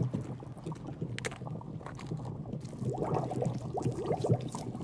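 Low water gurgling and sloshing, with a sharp click about a second in and more wavering gurgles near the end.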